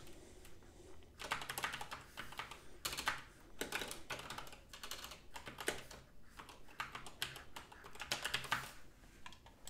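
Typing on a computer keyboard: quick runs of key clicks with short pauses between them, starting about a second in and stopping near the end.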